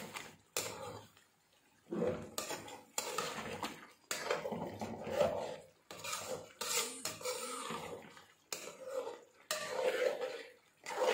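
A metal spoon scraping and stirring thick beef karahi masala around an aluminium karahi, in repeated strokes roughly one a second: the meat being bhunoed (dry-fried) with yogurt on low heat.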